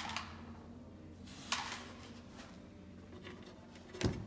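Hands handling the cedar seat slats of an Adirondack chair while fitting wood plugs: a brief rustle about a second and a half in, and a single thud near the end.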